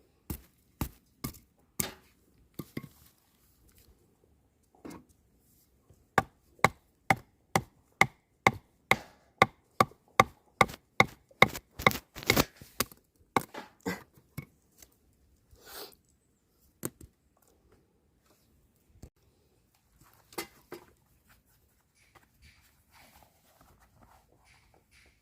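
A run of about twenty sharp, regular chopping strokes, two or three a second, with a few scattered knocks before it and after.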